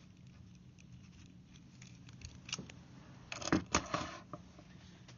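Light clicks and metallic rattles from a handheld RJ-45 crimp tool being handled after the crimp, with a short run of sharper clicks a little past halfway through.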